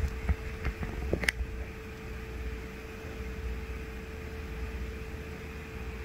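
Steady machine hum with one constant tone and a low rumble underneath. A few light clicks and taps in the first second and a half, the sharpest just over a second in.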